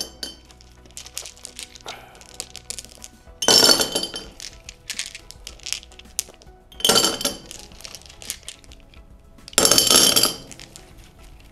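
Pebbles dropped by hand into a glass jar, clinking against the glass and each other: three louder clatters about three and a half, seven and ten seconds in, with lighter clicks between, over soft background music.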